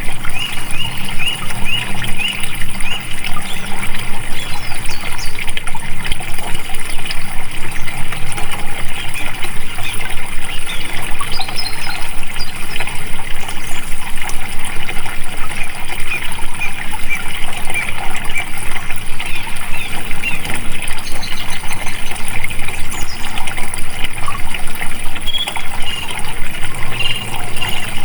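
Flowing water, a steady babbling and trickling that runs on without pause.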